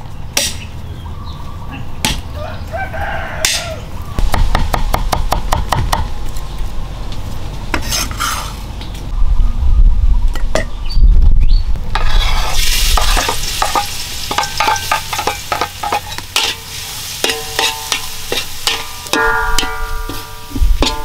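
A cleaver chopping garlic on a wooden board in rapid knocks. About halfway through, the chopping gives way to minced garlic sizzling in hot oil in a steel wok, with a metal spatula scraping and clinking as it is stirred.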